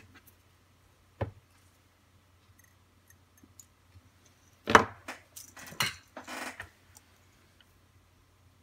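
Knocks and clicks of small plastic parts handled on a cutting mat: a light knock about a second in, a sharper knock near the middle, then a short run of clicks and rattles.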